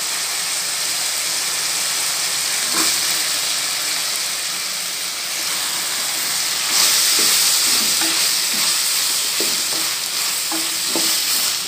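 Shallots, garlic and tomatoes sizzling in hot oil in a steel kadai, with a spatula scraping and stirring against the pan. The sizzle gets louder about seven seconds in, as the water-soaked brinjal pieces are stirred in.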